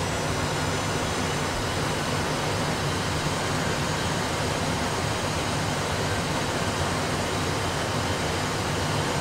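Steady cockpit background noise in an Airbus A320 full flight simulator: an even rush with a low hum underneath, unchanging throughout.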